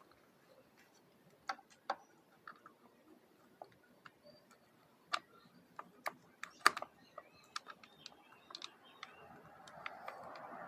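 Light, irregular metallic clicks and taps of a motorcycle clutch cable and lever being handled and refitted at the handlebar. A soft rustling hiss builds near the end.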